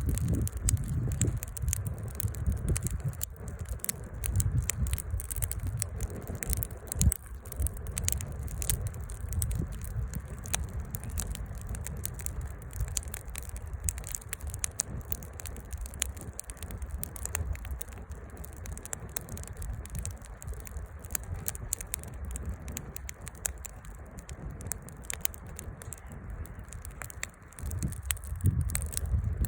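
Firewood burning in a campfire, crackling with many small irregular snaps and pops, over a low, uneven rumble.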